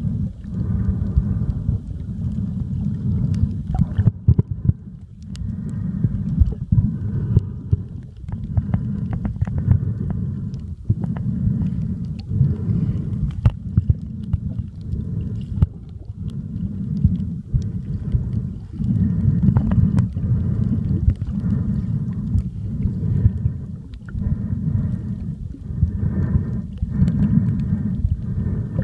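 Muffled underwater rumble and sloshing of seawater picked up by a camera held underwater while snorkeling, swelling and easing every second or two, with scattered small clicks.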